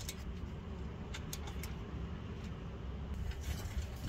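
Socket ratchet clicking in short, irregular runs while the bolts holding a rear bump stop are backed out, over a steady low hum.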